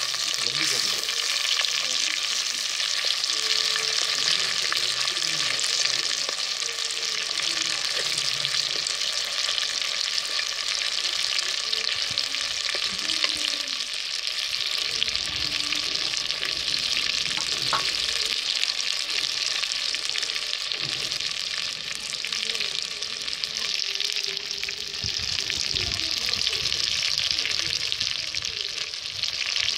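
Marinated chicken pieces deep-frying in hot oil: a steady sizzle with fine crackling throughout.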